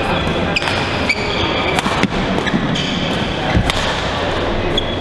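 Badminton play on several courts: sharp smacks of rackets hitting shuttlecocks, sneakers squeaking on the court mats, and a footfall thudding about three and a half seconds in.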